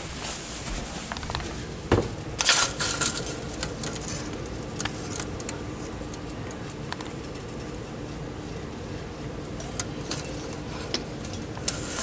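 Steady hum and fan noise of a 2022 Heil PHJ4 3.5-ton package heat pump running in cool mode. A thump about two seconds in, followed by a brief clatter.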